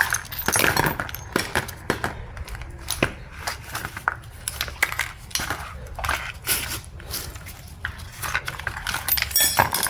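Irregular metallic clinks, taps and scrapes of tools and loose parts being handled while a Toyota Camry automatic transmission is taken apart, busier near the end.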